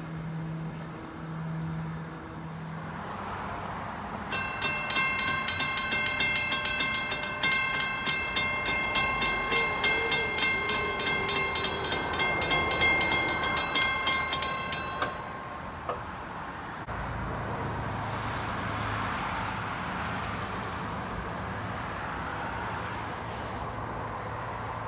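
Railroad grade-crossing warning bell ringing rapidly, about three strikes a second, for roughly ten seconds and then stopping. A steady low rumble follows until the end.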